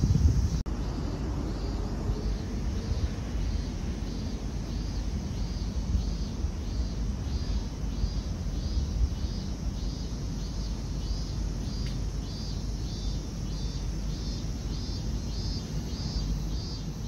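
Outdoor ambience: a steady low rumble, with a short high-pitched call repeating about two or three times a second.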